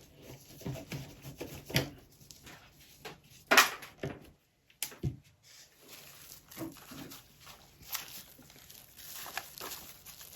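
Scattered small knocks, clicks and rustles of things being handled, with one louder knock about three and a half seconds in.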